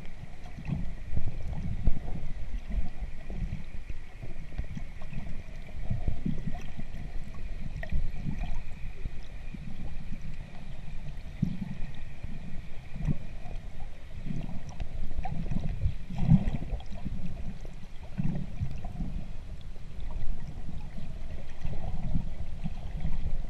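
Muffled underwater water noise heard through a submerged camera's waterproof housing: irregular low rumbling and gurgling surges. A faint steady high whine fades out about halfway through.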